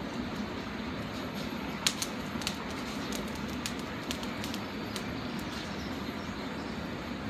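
Steaks cooking on a charcoal barbecue grill, with scattered sharp pops and crackles of fat spitting, thickest around the middle, over a steady low hum.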